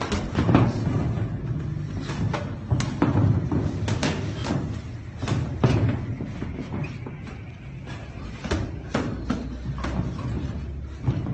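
Boxing sparring: irregular thuds and slaps of gloved punches and footwork on the ring canvas, with music playing underneath.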